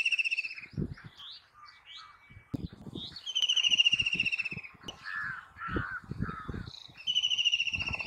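White-throated kingfisher giving its loud rattling trill: a fast, high-pitched stuttering run of notes that falls slightly in pitch. It comes three times: the first trill ends about half a second in, another runs from about three to five seconds, and a third starts near the end. Softer chirping notes fall between the trills.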